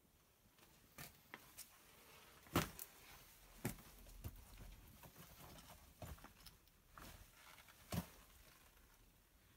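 Faint, irregular footsteps and scuffs on the rock floor of a small cave, with scattered knocks, the loudest about two and a half seconds in.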